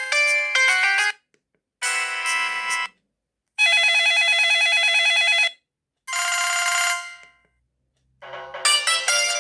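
Samsung SGH-Z240 mobile phone playing its ringtones through its loudspeaker, one after another: a melody cuts off about a second in, then three short tones follow with silent gaps between, the middle one a steady warbling tone lasting about two seconds, and a new melody starts near the end.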